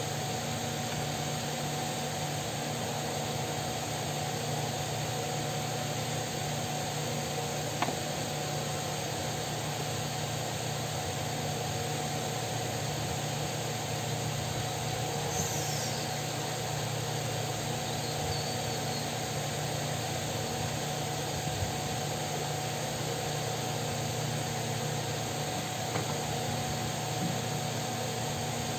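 Steady whirring hum of an electric fan, with an occasional faint click.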